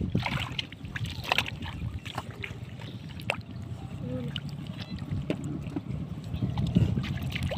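Hands splashing and sloshing in shallow muddy water, with many short sharp splashes and squelches, over a low rumble of wind on the microphone.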